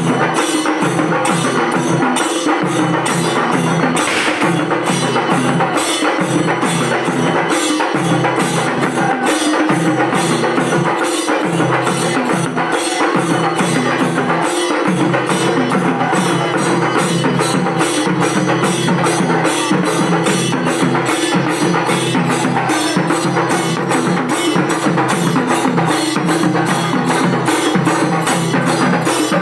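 Live percussion band of drums and cymbals playing a loud, fast, even beat, over a steady drone-like tone.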